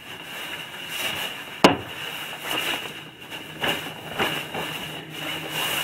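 Fabric sea brake (drogue) being shaken out and unfolded by hand: irregular rustling and flapping of the cloth and webbing straps, with one sharp knock about one and a half seconds in.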